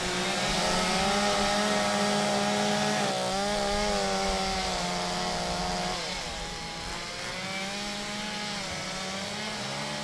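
Chainsaws running as they carve wood, their engine pitch wavering up and down with the throttle. More than one saw is heard at once, and the sound gets somewhat quieter after about six seconds.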